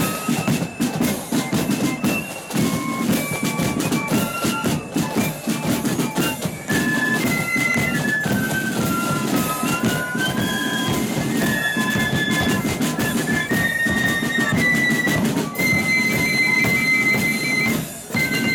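A marching flute band playing a tune in unison on flutes over beating drums. It ends on a long held high note near the end, then stops.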